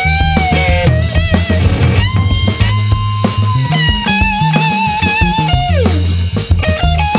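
Instrumental rock music: a guitar plays long held notes with vibrato over drums and bass, with one note sliding down about six seconds in.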